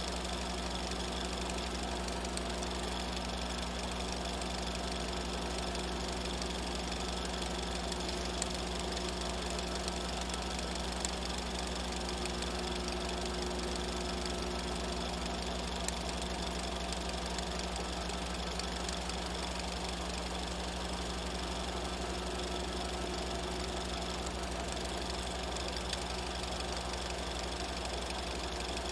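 Movie film projector running steadily: a fast, even mechanical clatter over a steady low hum, with a few slightly louder ticks.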